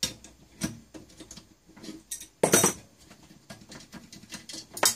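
Light metallic clinks and knocks of hand tools and parts being handled on a workbench, with a louder clatter about halfway through as an adjustable wrench is set down.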